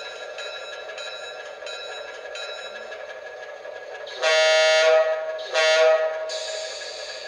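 ESU sound decoder in an Atlas O-scale RS-1 model diesel locomotive, playing the engine's steady running sound through the model's small speaker. For the first few seconds a bell-like ringing repeats about every 0.7 s. A little past halfway the horn sounds twice, a longer blast and then a short one, followed by a hiss.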